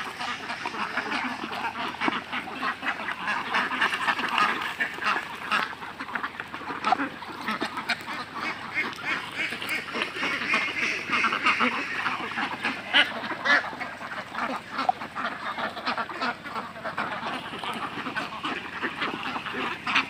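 A large flock of Khaki Campbell ducks quacking continuously while crowding a tray of feed, with many small quick clicks of bills working the mash.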